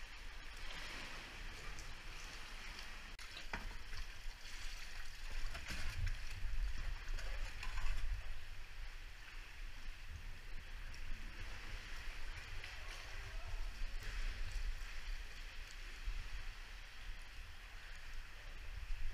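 Water sloshing and gurgling around a sea kayak paddled through a sea cave, with paddle splashes, a few sharp clicks and a steady low rumble underneath.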